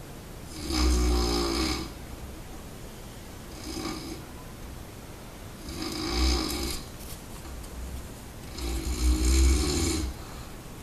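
A person sleeping and snoring, four snores evenly spaced about every two and a half to three seconds, the second one weaker than the others.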